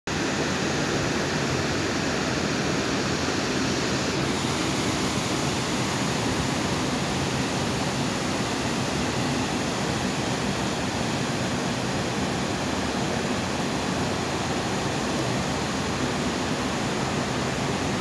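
A wide waterfall and the river below it rushing: a steady, unbroken noise of falling water.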